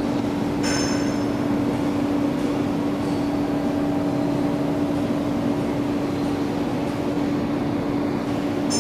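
Two-line tube drawing bench running, with a steady mechanical hum and a brief high-pitched squeal about a second in.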